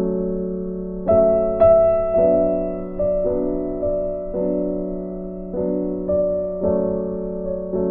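Background music: a slow, gentle keyboard tune in the manner of an electric piano, with soft notes about every second that fade over held chords.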